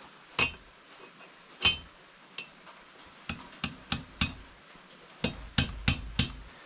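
Hammer taps on stacked socket extensions, driving a differential bearing race into its housing. There are about a dozen sharp metallic strikes. The first two are a second or so apart and ring briefly, then they come quicker, with a rapid run of five near the end.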